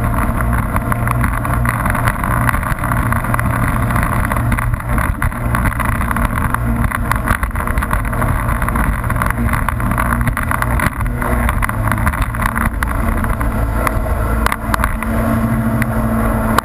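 Jet ski engine running at speed, with water spray and wind rushing past the handlebars.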